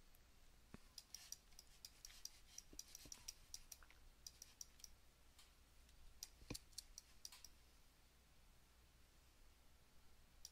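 Faint, irregular clicking of a computer mouse and keyboard, a couple of dozen short clicks that stop about seven and a half seconds in.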